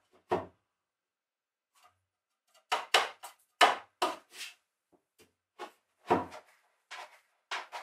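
Irregular wooden knocks and clunks as a tall timber post is handled and set against the boat's floor, in small clusters with pauses between.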